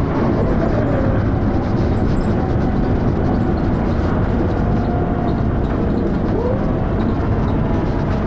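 Dennis Arrow double-deck bus under way, its engine running with heavy thrash amid steady rumble and road noise, recorded on a mobile phone; the engine is known to have a knocking noise.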